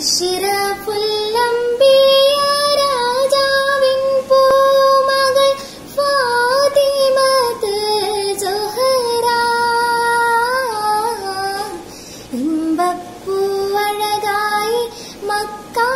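A girl singing a devotional song solo with no accompaniment. She holds long notes and decorates them with quick turns and slides, with a short breath about three quarters of the way through.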